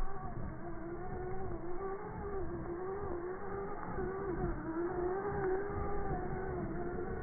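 Small electric RC car's motor whining, its pitch wavering up and down as the throttle changes, over a rough low scrabble of its tyres on loose gravel.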